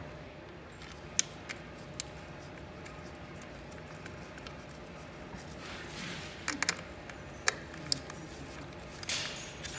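A handful of sharp, light metal clicks and some rustling handling noise from a hand tool and screws being refitted to a dirt bike's fuel petcock.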